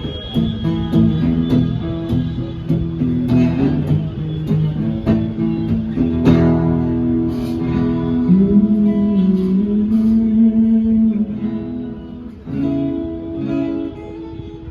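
Guitar playing chords and single notes through a sound system during a sound check, while its tone settings are being adjusted.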